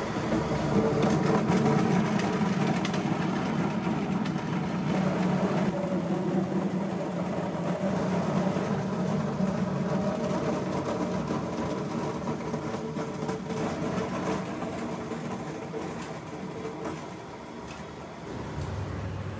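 Potato peeling machine running, a steady motor hum under the rough rattle of potatoes tumbling in its drum, quieter in the last few seconds.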